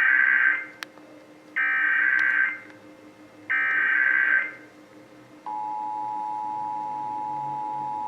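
Emergency Alert System SAME header: three bursts of warbling digital data tones, each about a second long. About five and a half seconds in, the steady two-tone EAS attention signal (853 and 960 Hz) starts, marking the start of a Required Monthly Test alert.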